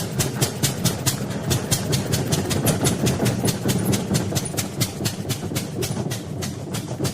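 Old car's starter motor cranking the engine, which turns over in a fast, even rhythm of about six or seven beats a second without catching.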